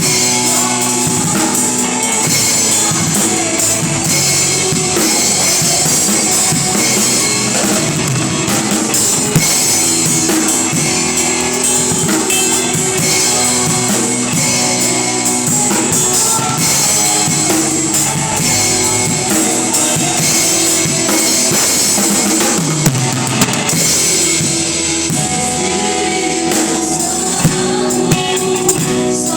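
Live gospel worship band playing, led by a drum kit with bass drum, with guitar and some singing.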